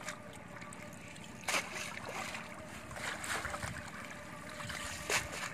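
Shallow water washing and sloshing around a wet cast net being handled at the water's edge, with two short splashes, one about one and a half seconds in and one near the end.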